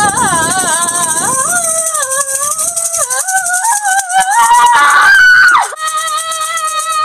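A shaker rattling fast and steadily under a high, wavering tone that steps and slides up and down like a wordless tune, with a sharp downward swoop about five and a half seconds in.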